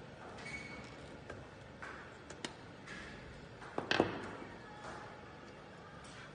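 Handheld stainless steel can opener being cranked around the rim of a tin can: light metallic clicks and creaks. A louder clatter comes about four seconds in, as the opener comes off the can and is set down on the tabletop.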